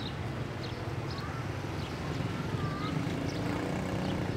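A motor vehicle's engine running steadily as a low hum, with short high chirps over it.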